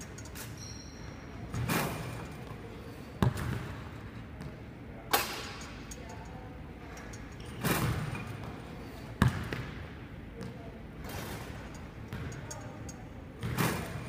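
Basketball strikes during a shooting drill on a hardwood gym court: a few sharp thuds a couple of seconds apart, with softer swells of sound between them.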